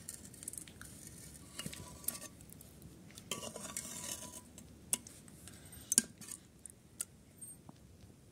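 A metal spoon stirring a thick aubergine and potato curry in a pressure cooker pot. It scrapes along the pot with sharp clinks now and then; the loudest clink comes about six seconds in.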